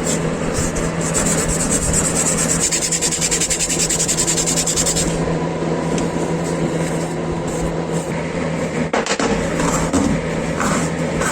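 A motor-driven tool running with a steady hum while something is sanded or abraded against it, giving a dense rubbing noise with rapid, even strokes in the first half that turn irregular later.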